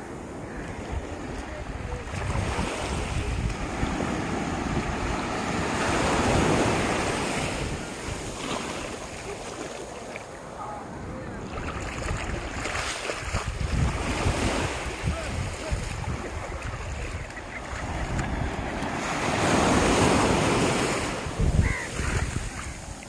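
Sea waves breaking on a sandy beach, the surf swelling to louder crashes about six seconds in and again near the end, with wind buffeting the microphone.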